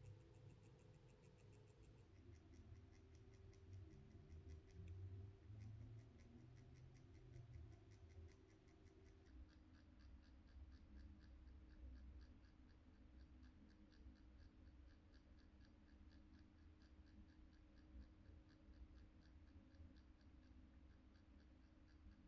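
Permanent makeup machine running faintly, a steady low hum with rapid even ticking from the reciprocating needle as it shades brow skin. Its pitch steps down slightly twice, about 2 and 9 seconds in.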